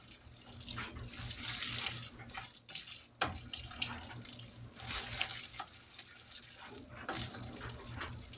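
Wet, sloshing stir of macaroni and melted cheese in a pot, a spoon pushing through it in uneven strokes, with a sharper clack of the spoon on the pot about three seconds in.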